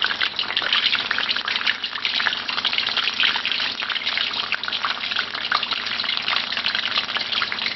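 Beer-battered fish fillet frying in hot oil in a wok: a steady sizzle thick with fine crackling.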